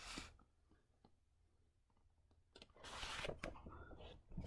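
Handling noise while paperback manga and the camera are moved. A brief rustle comes at the start and a longer rustle about three seconds in, with faint clicks in the quiet between.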